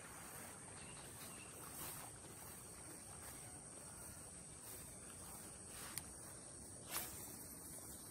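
Steady high-pitched insect chorus, with a sharp click about six seconds in and a louder knock a second later.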